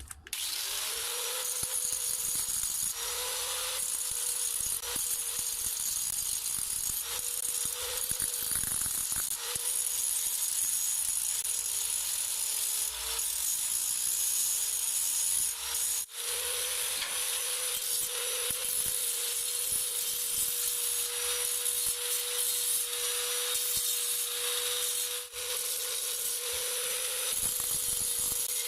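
Homemade mini lathe driven by an angle-grinder motor, running with a steady whine while a tool scrapes against the spinning work. The sound breaks off briefly twice.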